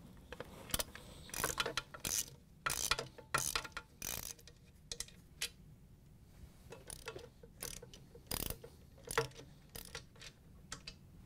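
Ratchet with a large Phillips driver bit clicking as it is worked back and forth to loosen the large base screws of a KitchenAid stand mixer. The clicks come thick for the first few seconds, then thin out into scattered clicks of handling.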